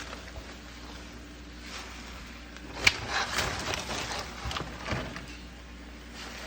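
Handling noise as spinach is put on top of the chicken and onions in the pan: a sharp knock about three seconds in, then a couple of seconds of rustling and small knocks, over a low steady hum.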